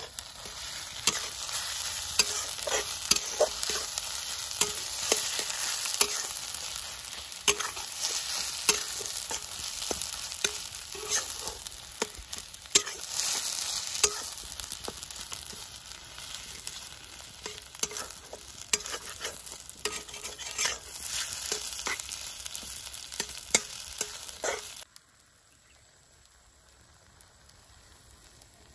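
Snail meat frying and sizzling in a black iron kadai, stirred with a metal spatula that scrapes and clacks against the pan again and again. The sizzle and stirring cut off suddenly near the end.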